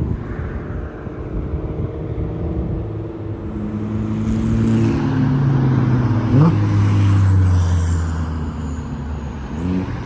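A motor vehicle's engine passing by, growing louder and then fading, its pitch slowly dropping as it goes past.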